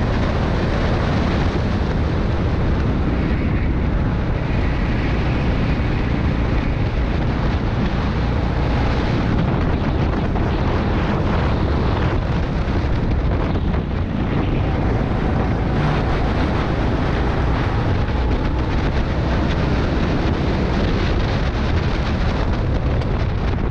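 Rental go-kart engine running hard at racing speed, heard from on board the kart, mixed with steady wind noise on the microphone.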